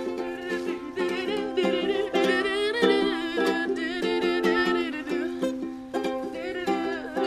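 A new Luna ukulele, just tuned, strummed in chords with a steady rhythm.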